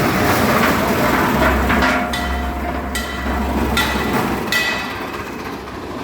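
Concrete mixer machine running with a dense mechanical rumble. Four sharp metallic clanks ring briefly, under a second apart, in the middle.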